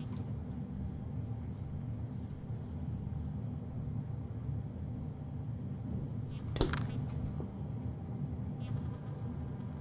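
Steady low background hum of the room, with faint high-pitched chirps in the first few seconds and a single sharp knock about six and a half seconds in.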